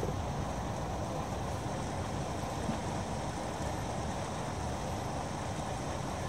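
De Havilland Canada Dash 7 turboprop airliner, its four engines running steadily: a low, even noise that holds the same level and pitch throughout.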